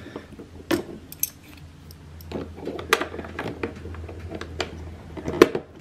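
Hard plastic parts clicking and knocking together as a plastic piece is fitted inside an RC boat's hull: irregular clicks, the sharpest one near the end.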